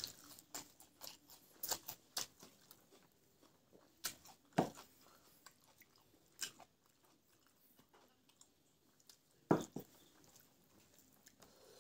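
Close-up chewing and crunching of a mouthful of fresh raw greens, in short irregular crunches, with two louder crunches about four and a half and nine and a half seconds in.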